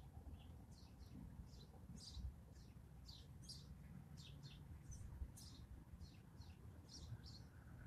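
Small birds chirping faintly: many short high chirps, two or three a second, over a low background rumble.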